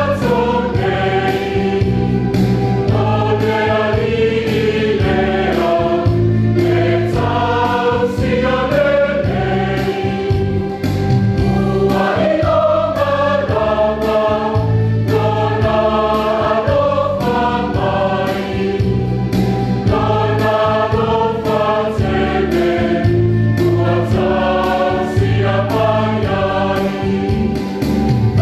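Church choir singing a hymn in several parts over instrumental accompaniment with a steady beat.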